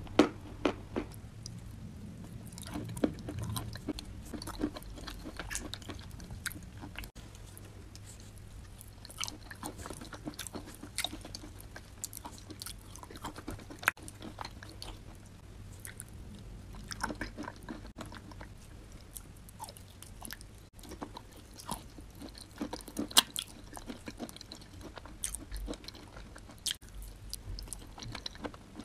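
Close-up mouth sounds of chewing and crunching chalk and clay mixed into a creamy paste: many irregular sharp crunches and clicks between softer chewing.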